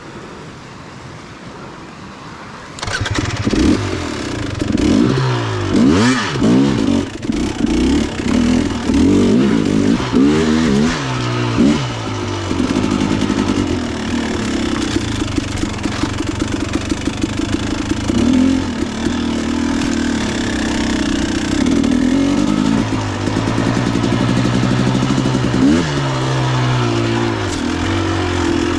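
Dirt bike engine coming in loud about three seconds in, then revving up and down unevenly, its pitch rising and falling again and again as the bike is ridden.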